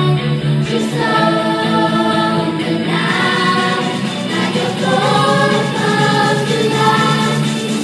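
A group of young singers singing together in harmony into handheld microphones, amplified through the hall's speakers.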